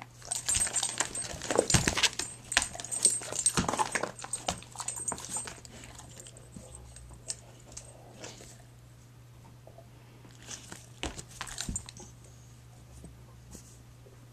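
A large black dog making close-up, non-barking noises: a run of irregular rough sounds over the first six seconds, then only a few scattered ones later on.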